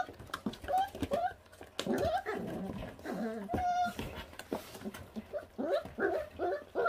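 Four-week-old feral-dog puppies giving many short, high whining cries that rise and fall while they crowd and jostle over a piece of raw meat, competing for the food.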